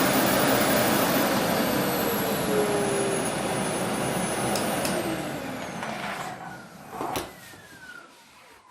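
Aspiron canister vacuum cleaner motor running with a high whine, then switched off about five seconds in, its pitch falling as it spins down. A sharp knock about seven seconds in.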